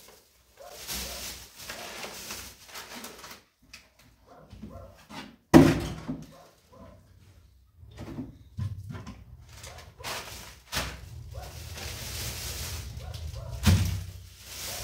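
Plastic bags crinkling and rustling as groceries are handled and unpacked, with a loud thump about five and a half seconds in and a second thump near the end.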